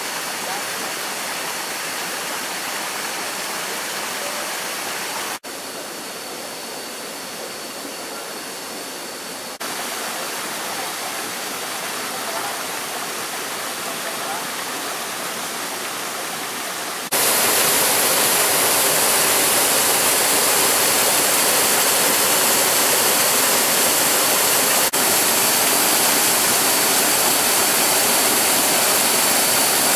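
Rushing water of a jungle stream and waterfall, a steady hiss that changes level abruptly a few times and is loudest from about seventeen seconds in.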